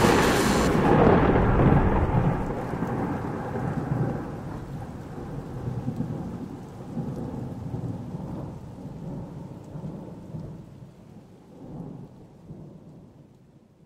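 Thunderstorm sound effect: a sharp thunderclap at the start, then a long rolling rumble with rain that slowly fades away, with a smaller swell of rumble near the end.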